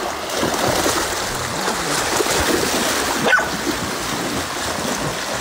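Stream water rushing steadily over a shallow bed, with one short high whine that falls sharply in pitch about three seconds in.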